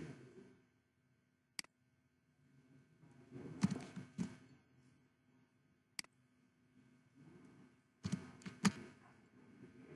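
Faint, scattered clicks of a computer mouse and keyboard as code is edited: single sharp clicks about one and a half and six seconds in, and short clusters of clicks with soft low thumps around four and eight and a half seconds in.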